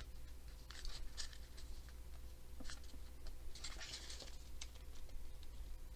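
Sheet of cardstock rustling and scraping on the tabletop as hands fold its edges to the center and press the folds flat, in short, irregular bursts.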